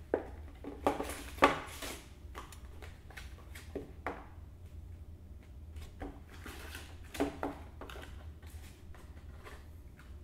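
Small cardboard box being opened and its contents handled: a few sharp clicks and rustles of card and paper, the loudest in the first two seconds and another pair about seven seconds in, over a low steady hum.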